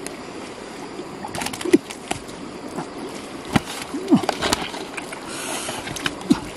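Large live fish flopping and slapping on wet mud and against a plastic basin, with scattered wet smacks and splashes. About five seconds in there is a brief rush of water as the basin is tipped out. A few short low calls that bend in pitch are heard between the slaps.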